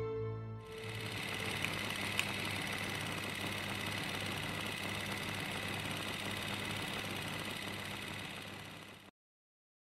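A steady mechanical running noise with a faint high whine and a low hum, with two small clicks about two seconds in. It cuts off abruptly near the end.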